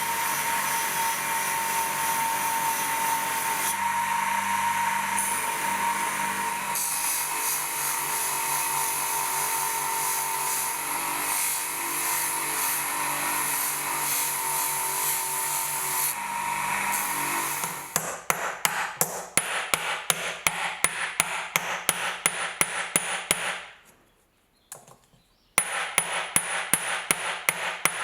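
An electric power tool runs steadily with a thin whine. About two-thirds in it stops, and a hammer strikes metal in quick light taps, about four a second, pausing briefly before the tapping resumes.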